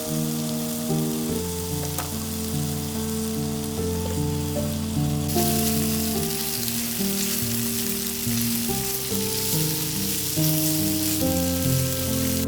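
Food sizzling and frying in a hot pan, the sizzle growing louder about five seconds in, over background music.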